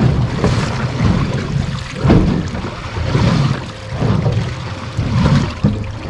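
Wind buffeting the microphone over water slapping against a small boat's hull, surging and easing about once a second.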